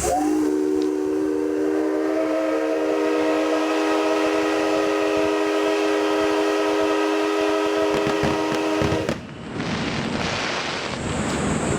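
Locomotive whistle of the C12 167 steam engine, sounded on compressed air: one long chord-like blast that slides up as it opens, holds steady for about nine seconds, then cuts off sharply.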